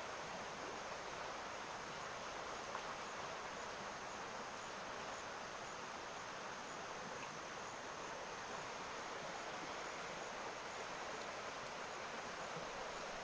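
Steady outdoor ambience beside a small stream: an even hiss of the flowing water, with a faint high-pitched insect trill for a few seconds near the start.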